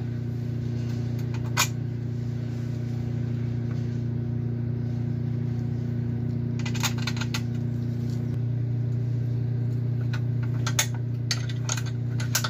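Steady engine drone of hedge-cutting machinery working on the lane, which sounds like the council brush-cutting or cutting the hedge; its pitch shifts slightly about two-thirds of the way through. A few light clicks and taps sound over it, more of them near the end.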